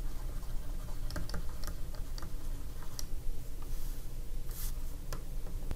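Stylus clicking and tapping on a tablet screen while handwriting a word, small irregular clicks over a steady low hum.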